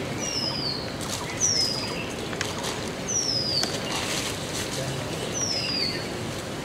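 A bird repeatedly gives a short, high whistle that falls in pitch, four times at intervals of one and a half to two seconds, over a steady outdoor background hiss.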